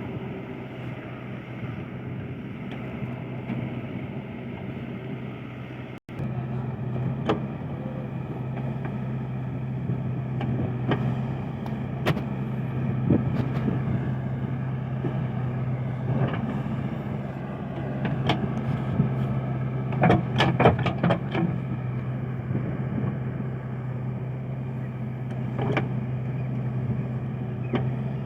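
Heavy diesel machinery engine running steadily at a constant speed, with scattered sharp knocks and clanks, a quick cluster of them about two-thirds of the way through.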